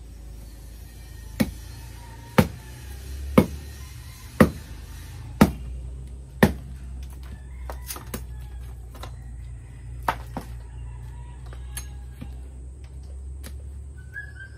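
Bolo machete chopping and splitting dry wood held upright on a block: six sharp strokes about a second apart, then a few lighter, irregular knocks as the blade works the split open.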